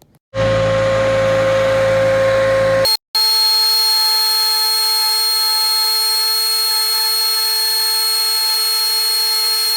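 Homemade 'poor boy' lathe's motor running at a steady speed with a high whine as the antler ring spins against fine-grit sandpaper. About three seconds in the sound cuts out for a moment and comes back at a slightly different pitch.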